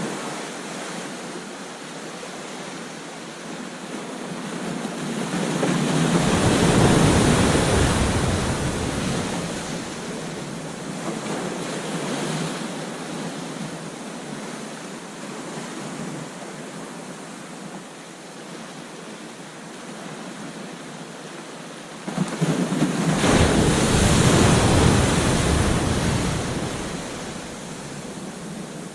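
Ocean surf breaking on a beach: a steady wash of water that swells twice into a loud crashing wave. The first builds gradually to a peak about seven seconds in; the second hits suddenly near the end and then slowly subsides.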